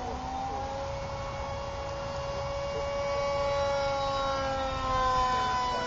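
Whine of the Prizm Hex RC park jet's electric motor and spinning propeller in flight. It is a steady pitched drone that rises slightly about a second in and dips in pitch near the end.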